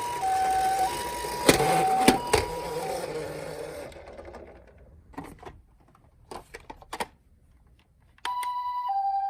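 Toy ambulance minicar's electronic two-tone 'pee-po' siren, alternating high and low about every half second, over the rolling noise of the die-cast cars on the slope. Three sharp clacks of the cars come about a second and a half in, then the siren and rolling die away, leaving a few light clicks. Near the end a second toy ambulance siren starts abruptly, a two-tone pattern with extra higher tones.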